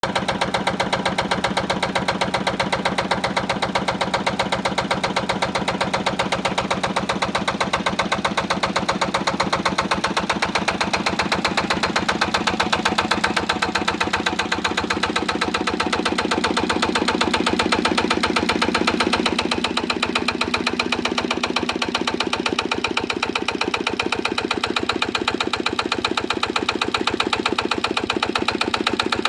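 1965 Lister LD1 single-cylinder diesel stationary engine running steadily with an even, rapid firing beat, fitted with a reconditioned injector.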